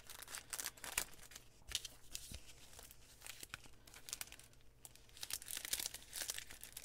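Faint crinkling and rustling of a clear cellophane bag as a card sheet of adhesive pearls is handled and slid into it, in scattered soft crackles that thicken near the end.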